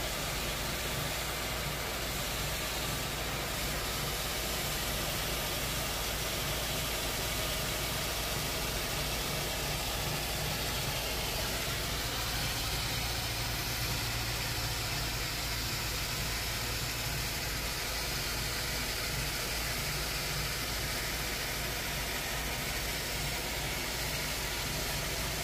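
An engine running steadily with a constant hiss over a low hum, unchanging throughout.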